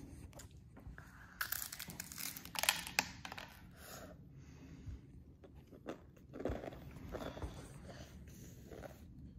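A child biting and chewing a crunchy cereal snack ball, with the loudest crunching in the first few seconds and softer chewing a few seconds later.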